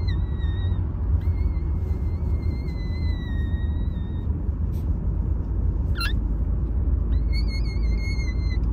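Newborn Toy Terrier puppies whining in thin, high, drawn-out cries, three of them, the last one wavering, with a short sharp squeak about six seconds in. A steady low rumble runs underneath.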